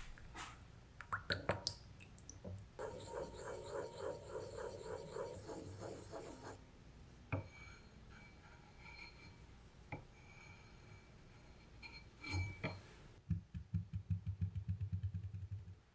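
Wooden spoon stirring a soy sauce and cornstarch mixture in a ceramic bowl: a few taps against the bowl, then a few seconds of quick, rhythmic stirring strokes. Near the end comes a fast run of low thuds.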